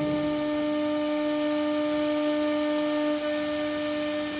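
MXZ-S086 door lock and hinge drilling machine running, with a steady motor whine. About three seconds in it gets louder and a high hiss joins it.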